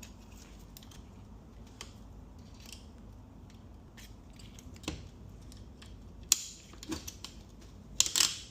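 Small metal clicks and clinks as a snap ring is worked out of a Ford 10R80 automatic transmission's clutch assembly with hand tools. A few sharper metal clinks come about five seconds in and near the end.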